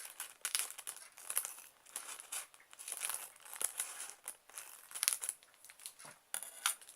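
Game packaging crinkling and rustling, with irregular crackles throughout, as it is handled and opened.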